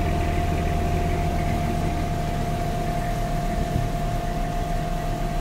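Tractor engine running steadily at idle, heard from inside the cab, a low even hum with a steady whine held over it.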